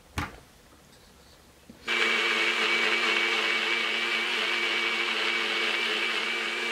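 Single-serve bullet-style blender running steadily while blending a smoothie. It starts suddenly about two seconds in, after a short click, and runs as a steady motor hum with a thin high whine over it.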